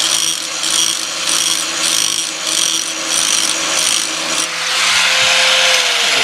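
Electric grinder sharpening a steel Bush Hog rotary-cutter blade, its wheel rasping along the edge in even back-and-forth passes, about one every half second or so. Past halfway the grinding becomes one louder, steady grind. Near the end the motor's pitch starts to drop as it winds down.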